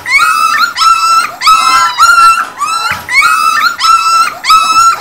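Young Weimaraner puppies crying: a steady run of high-pitched whining cries, about two a second.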